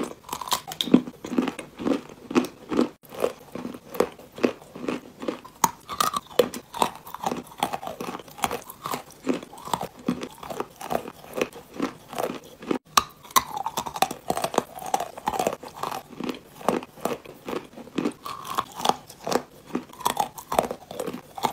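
Wet Ural clay being bitten and chewed: a continuous run of sharp, crunchy crackles and wet mouth sounds as pieces of the clay lump are bitten off and ground between the teeth.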